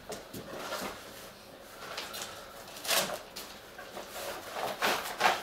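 Rustling and crinkling of packaging as a cricket bat in a black wrapper is handled and lifted out of a cardboard box, with louder rustles about three seconds in and again near the end.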